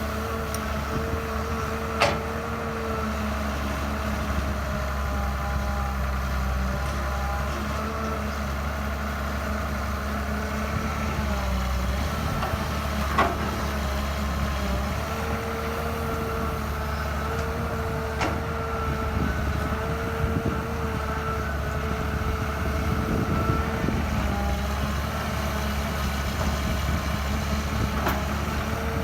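Excavator's diesel engine running steadily at work, with a high tone that comes and goes over the drone. A few sharp knocks cut through, the loudest about two seconds in and again about thirteen seconds in.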